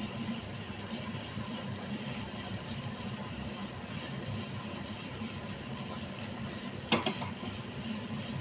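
Vegetables and tomato frying in a pan, stirred with a silicone spatula, over a steady low hum. A single sharp knock comes about seven seconds in.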